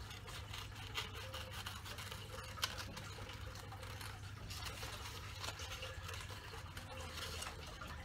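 Scissors snipping through folded paper in short, irregular cuts, with a sharper click about two and a half seconds in.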